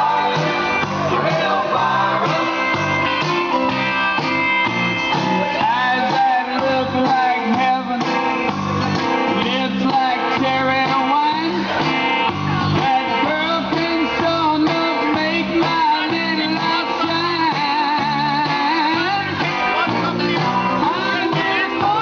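A rock song playing loudly, with a singer over guitar-driven backing.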